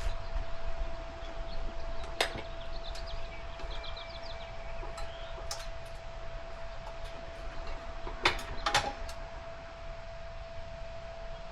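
Tire irons clicking and knocking against a dirt bike's aluminium rim as the tire bead is worked on: a sharp knock about two seconds in and two more close together past the eight-second mark, over a steady faint hum.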